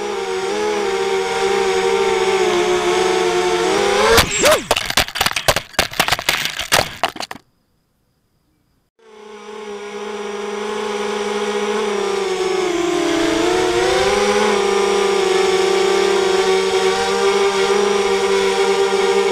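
Brushless motors and 5-inch propellers of a 250-size racing quadcopter whining with several steady tones that dip and rise together as the throttle changes. About four seconds in, a burst of sharp crackles and knocks lasts about three seconds, then the sound cuts out for over a second before the whine builds back up.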